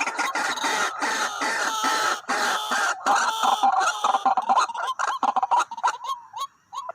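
White-breasted waterhens calling: a dense run of harsh, overlapping clucking calls that thins after about five seconds into short notes repeated several times a second.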